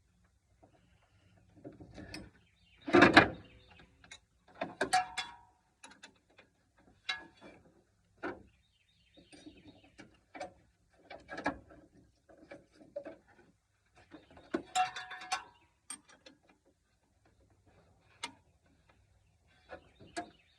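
Metal hand tools clinking and knocking while a wrench is fitted to the truck's belt tensioner pulley to release the serpentine belt: scattered clicks and clanks, the loudest about three seconds in.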